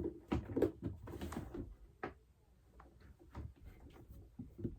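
Small plastic and rubber fidget toys being handled and sorted: a busy patch of rustling and light taps for the first second or so, then scattered single clicks.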